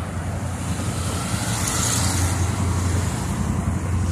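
Road traffic: a motor vehicle's engine running steadily close by, with a hiss swelling briefly about two seconds in.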